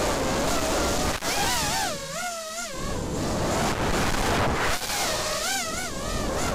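Brushless motors and 4-inch tri-blade props of an FPV racing quadcopter, heard from its onboard camera as a constant rush of prop wash and wind. Twice a whine comes through that wavers quickly up and down in pitch as the throttle changes.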